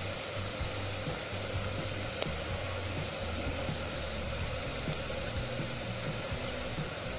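An egg frying in hot oil with curry leaves and dried red chillies, a steady sizzling hiss as it foams over a slow flame, with a low hum underneath.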